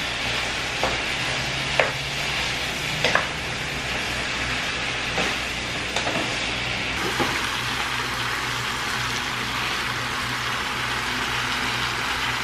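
A beef, ham and pineapple stir-fry sizzling steadily in a frying pan as a wooden spoon stirs it, with a few light knocks and scrapes of the spoon against the pan in the first half.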